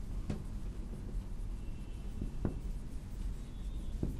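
Marker pen writing on a whiteboard: faint scratching strokes with a few light taps of the tip.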